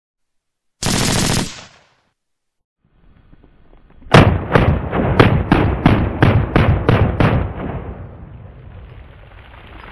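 A short loud burst of sound about a second in. Then, about four seconds in, an AR-15 pistol fired rapidly: about ten shots in three seconds, roughly three a second, each with a short echo.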